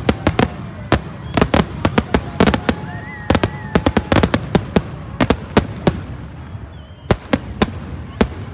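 Fireworks going off: a rapid run of sharp bangs and cracks, several a second, that grows sparser about six seconds in.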